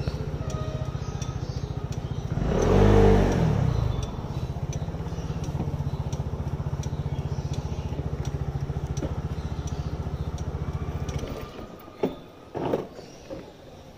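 Motor scooter engine running steadily, with a short surge of throttle about three seconds in. It is switched off about eleven seconds in, followed by a few clicks and knocks.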